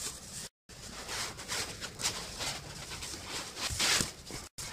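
Foam packing block rubbing, scraping and squeaking against the cardboard box as it is pulled out by hand: an irregular run of scratchy rustles, cut off for a moment twice.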